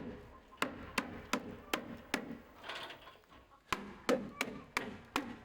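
Hammer driving nails into wood, a steady run of sharp blows at about two to three a second, with a short pause near the middle.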